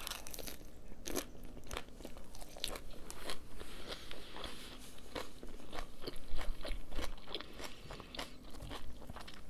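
Close-up crunching and chewing of a mouthful of lettuce wrap (ssam) with rice and meat: a dense run of short crisp crunches from the fresh lettuce leaves, loudest about six seconds in.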